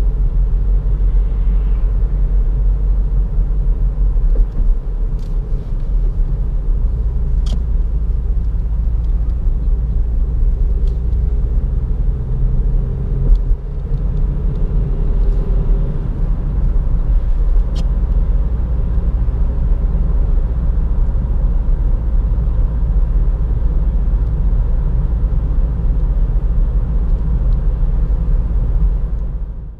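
Steady low rumble inside the cabin of a Kia Optima SW with a 1.7 CRDi four-cylinder turbodiesel, driving at a steady pace: engine and tyre noise, with a few faint ticks.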